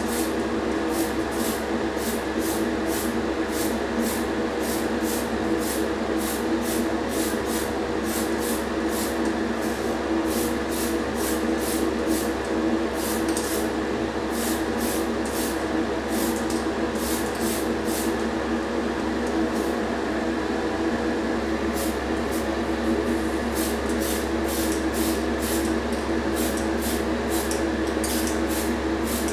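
A small motor-driven workshop tool running steadily with a constant whine, with faint irregular high ticks over it.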